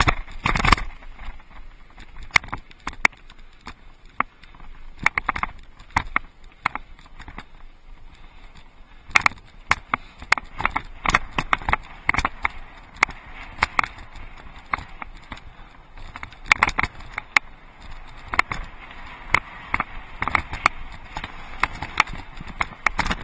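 Mountain bike rolling over a rocky dirt and gravel trail: steady crunch of the tyres on grit, broken by frequent irregular knocks and rattles as the bike jolts over rocks and bumps.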